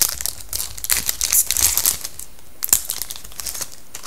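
Foil wrapper of a hockey card pack crinkling and crackling in quick bursts as it is opened and crumpled by hand. The crackling dies down shortly before the end.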